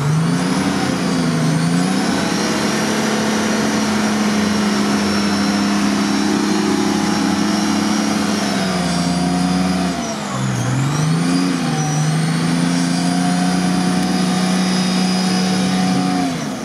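Nissan Patrol off-road engine revved up and held at steady high revs while the vehicle winches itself up a steep bank. The revs sag briefly about nine seconds in, climb back and hold, then drop near the end.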